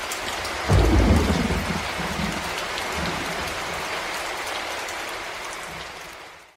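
Steady rain with a clap of thunder: a deep rumble breaks in a little under a second in and dies away over the next couple of seconds, then the rain fades out near the end.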